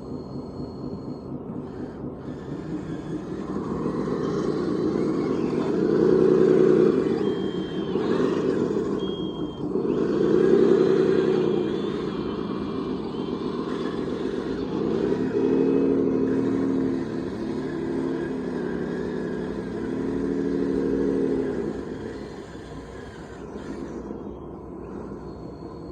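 A radio-controlled model construction machine's motor runs steadily, rising in pitch and loudness in four surges as it works under load, then eases off near the end.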